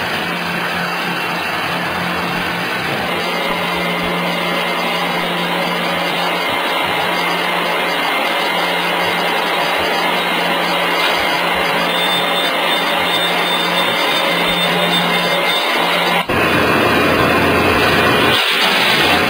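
Steady industrial machinery noise with a low hum. About 16 seconds in it cuts to a different, louder machine noise with a deeper hum.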